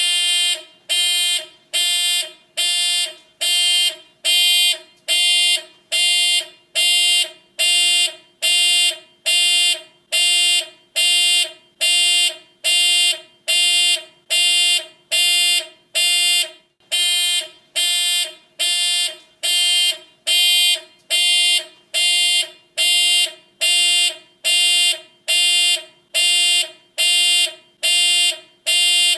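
Hospital room alarm beeping: a buzzy electronic tone of one steady pitch, repeating a little more than once a second in even beeps of about half a second each.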